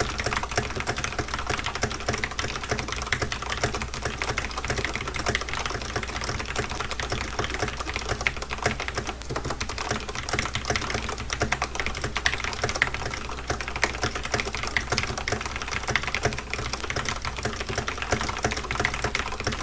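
Very fast typing on a Corsair K70 RGB Rapidfire mechanical keyboard with Cherry MX Speed (Silver) linear switches, at about 150 words per minute. It makes a dense, unbroken clatter of keystrokes.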